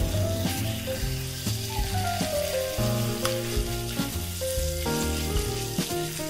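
Gochujang-marinated sliced meat sizzling as it stir-fries in a hot nonstick wok while it is spread out with chopsticks. Background music plays throughout.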